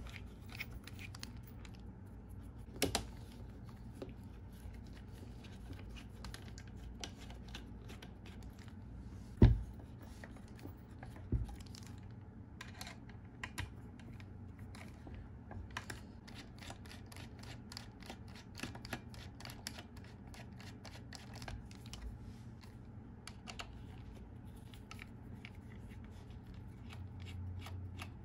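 Precision screwdriver working small screws out of a 2013 Mac Pro's internal boards and frame, a run of quick fine clicks and scrapes. A few knocks as the machine is handled, the loudest about nine and a half seconds in.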